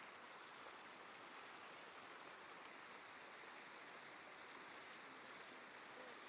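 Faint, steady rush of a small creek running over a shallow riffle.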